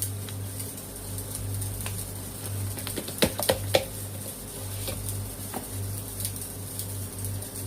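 Light ticks and rustles of a parcel being unpacked and a plastic container handled, with three sharper knocks a little after three seconds in, over a steady low hum.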